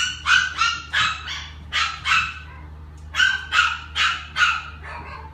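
Small dog, a Yorkshire terrier, barking in high-pitched yaps: about a dozen short barks in three quick runs with brief pauses between.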